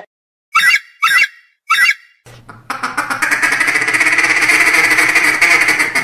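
Animal calls: three short calls in quick succession, then from about two seconds in a steady, rapid buzzing trill of many fast pulses.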